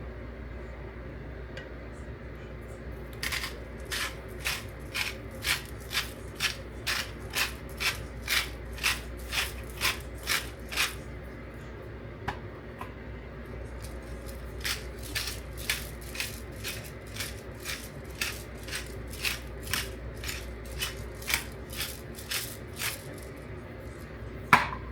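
Knife chopping on a cutting board in two runs of steady strokes, about two a second, with a pause between them and one louder knock near the end. A steady low hum runs underneath.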